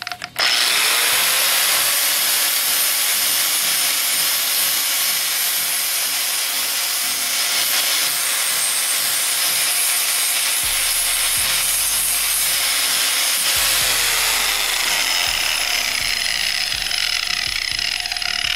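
Angle grinder with a flap disc spinning up about half a second in, then grinding rust off a steel seat bracket: a steady, loud grinding hiss. Its motor whine drops in pitch in the second half.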